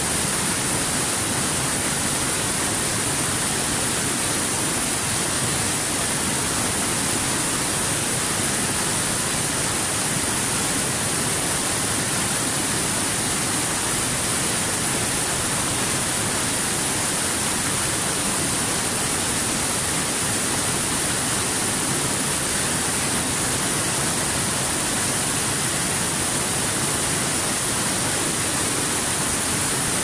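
Small waterfall cascading over boulders into a rock pool: a steady, unbroken rush of falling water with a strong hiss.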